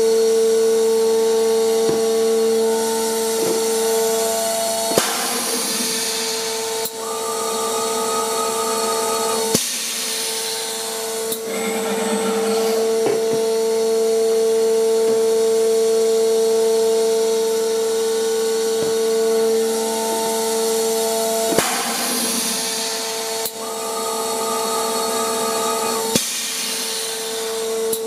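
Volumetric dosing filler running with a steady motor whine over a lower hum. Twice, about sixteen seconds apart, a dosing cycle breaks in: sharp clicks, a few seconds of hiss and a higher tone lasting about two seconds, before the steady whine returns.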